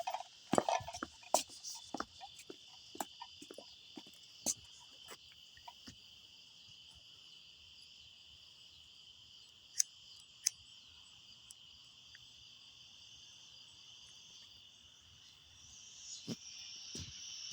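Night insect chorus: a steady, high-pitched buzzing drone that swells near the end. Scattered clicks fall over it in the first few seconds, with two sharper clicks about ten seconds in.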